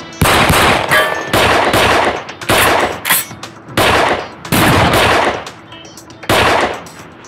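A gunfight with semi-automatic pistols: shot after shot, coming about once a second or in quick pairs, each one ringing on in a fading echo.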